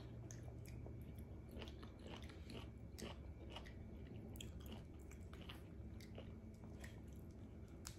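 Faint close-up chewing of pomelo pulp: many small, irregular wet clicks as the juice sacs pop in the mouth.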